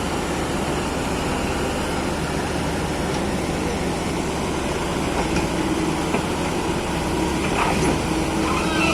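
Excavator's diesel engine running steadily, with a steady hum coming in about halfway and a little louder near the end.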